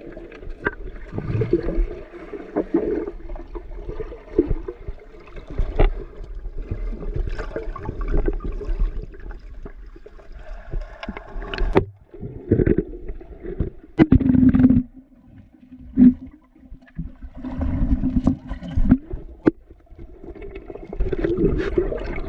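Water sloshing and gurgling around a GoPro held in river water, heard muffled with little treble, with several sharp knocks and splashes against the camera; the loudest come about two-thirds of the way through.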